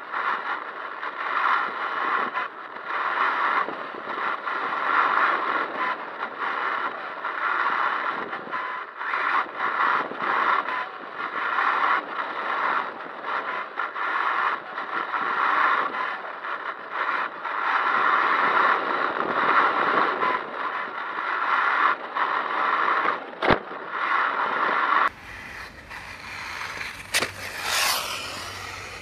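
HPI WR8 Flux brushless electric 1/8-scale RC rally car driving over paving stones, heard from a camera on the car: drivetrain whine and tyre rumble over the stone joints, rising and falling with the throttle. A single sharp knock comes a little before the end, and near the end the car is heard from beside the path with a brief rising and falling pitch as it passes.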